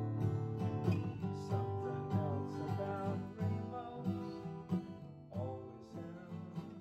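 Acoustic guitar strumming chords in a steady rhythm, getting quieter toward the end.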